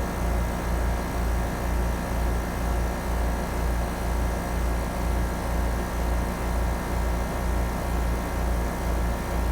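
Trane XR14 3.5-ton heat pump outdoor unit running in heat mode: a steady low hum that pulses about twice a second, with an even rushing noise above it.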